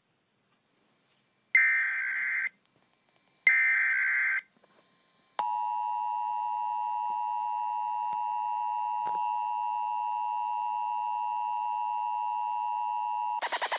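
Emergency Alert System tones: two short bursts of SAME digital header data, each about a second long, then the steady two-tone EAS attention signal, which holds for about eight seconds before breaking into a rapid pulsing near the end.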